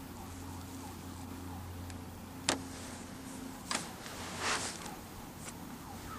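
A canoe paddle knocking sharply against the canoe twice, about two and a half and nearly four seconds in, then a short splashing swish, over a steady low hum.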